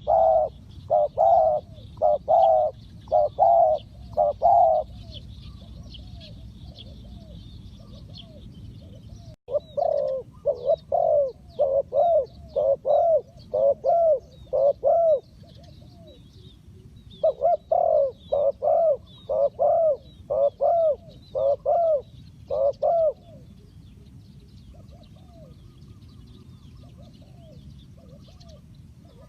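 Spotted doves cooing: three runs of loud, evenly spaced coos, with fainter coos from another dove between and after them. Small birds chirp faintly throughout.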